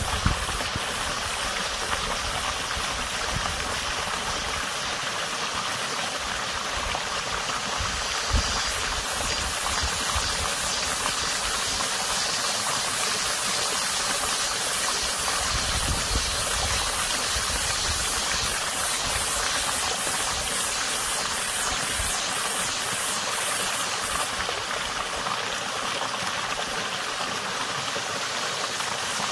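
Water running steadily in a small creek, a continuous even rush. About a third of the way in, a fast-pulsing high buzz joins it and fades out near the end.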